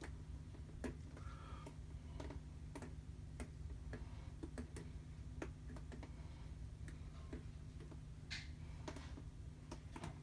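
Faint, irregular ticks and small taps, one or two a second, from handling and tilting a wet acrylic-poured canvas, over a low steady hum.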